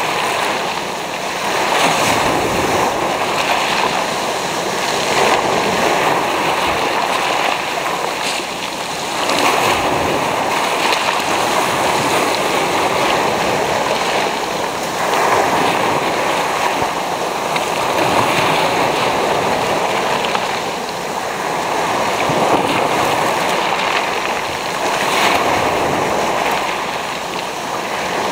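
Small sea waves breaking and washing in foam over a pebble beach, close to the microphone. The surf swells and falls back every three to five seconds as each wave comes in and draws back.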